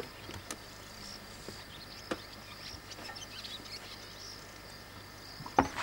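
Outdoor bush ambience with insects chirping steadily and faintly, a few soft clicks, and a single sharp knock near the end.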